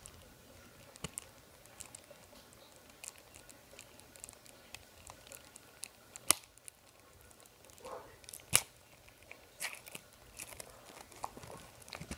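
CD packaging being crinkled, picked at and torn open by hand: scattered small crackles and clicks, with two sharp snaps about six and eight and a half seconds in.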